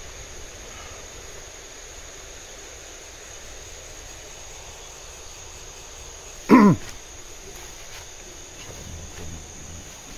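Night insects, crickets, chirring steadily in the forest. About six and a half seconds in, one short, loud sound slides quickly down in pitch.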